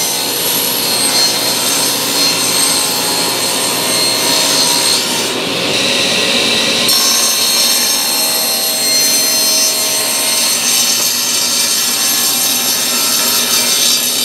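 Table saw running, its blade crosscutting a wide wooden cabinet-door panel: a steady motor and blade whine under the rasp of the cut. The high cutting hiss drops out for a second or so about five seconds in.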